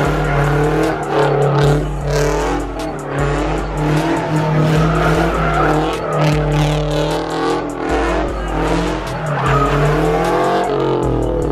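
A car spinning donuts, its engine revving and its tyres squealing as it slides, over music with a heavy bass beat that pulses about once a second.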